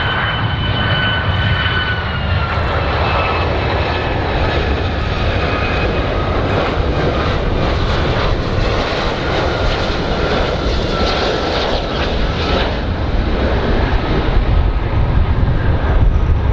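Large airplane's engines running with a steady roar and deep rumble, over which a high whine slowly drops in pitch and fades about twelve seconds in.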